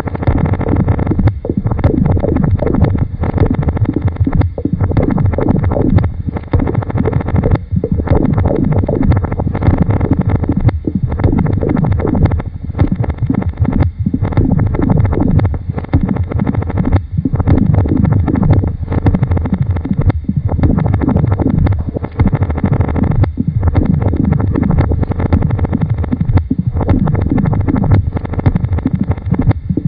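Experimental electronic noise and tape music: a dense, low-pitched mass of sound layered with many downward-sliding tones, broken by brief gaps every second or two.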